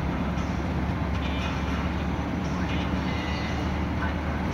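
Steady noise of a vehicle travelling on the road, a continuous low rumble with rushing noise, and faint indistinct voices.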